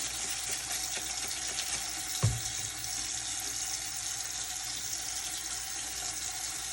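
Tap water running steadily into a sink while a feeder is rinsed under it, with one low thump about two seconds in.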